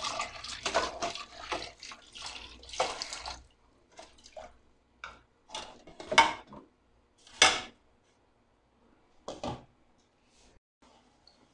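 Tap water running into a rice cooker's inner pot while rice is rubbed and rinsed by hand. The water stops after about three and a half seconds, and a few separate splashes and knocks follow as the pot is handled and the rice is swished in the rinse water.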